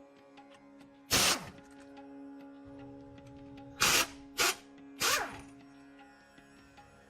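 Four short bursts from a pneumatic tool, one about a second in and three close together near the middle, over steady background music.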